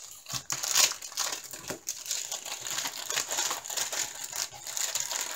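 Plastic packaging crinkling and rustling as it is handled: the clear protective film on a diamond-painting canvas and bags of drill packets. The crackling comes in irregular runs throughout.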